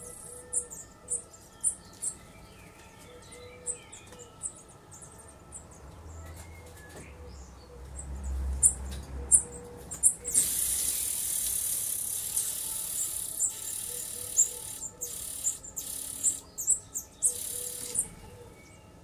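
Nestlings begging in a nest box: thin, very high cheeps repeating all through, swelling about ten seconds in into a loud hissing begging chorus that breaks off in short gaps and dies down near the end. A brief low rumble comes a few seconds before the chorus.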